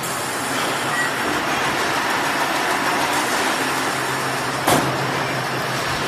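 Fully automatic round silage baler and wrapper running, a steady mechanical clatter, with a single loud knock about four and a half seconds in.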